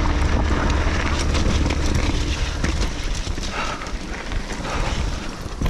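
Mountain bike rolling downhill on a dirt and gravel track: tyres crunching over the loose surface and the bike rattling, with wind buffeting the helmet microphone. The low wind rumble eases off about halfway through.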